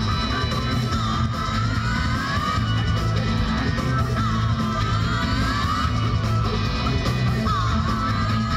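Live rock band playing: electric guitar, bass and drums, with a high melody line that slides up between notes over a steady low bass.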